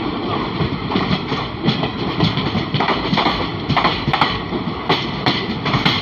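Passenger train running at speed, heard from outside the coach: steady rush with the clatter of wheels over rail joints, as another train's coaches pass close on the next track.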